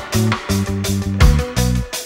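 Background music: an instrumental track with a drum beat and a bass line.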